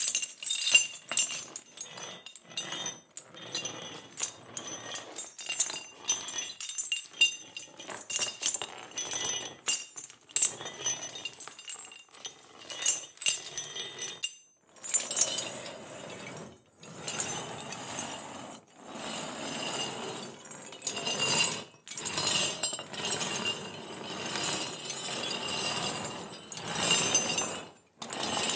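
Metal chains clinking and rattling in irregular bursts, with high ringing clinks.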